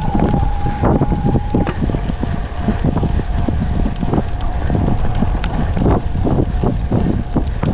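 Wind buffeting the microphone over the rattle and knocks of a mountain bike on a rough trail, with the thin steady whine of the electric mountain bike's motor, which drops slightly in pitch and fades about two seconds in.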